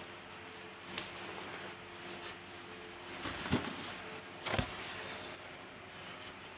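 Rustling and knocking from handling a boxed monitor and its packaging, with a few sharp knocks; the loudest come about three and a half and four and a half seconds in.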